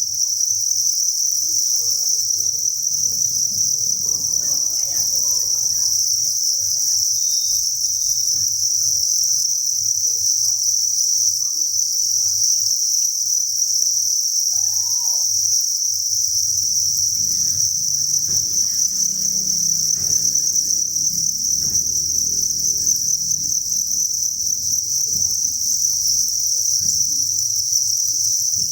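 Dense chorus of thousands of farmed crickets chirping together, an unbroken high-pitched trill at a steady level.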